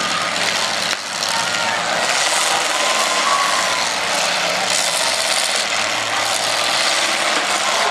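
Several demolition derby cars' engines running and revving together, heard as one steady loud wash of engine noise.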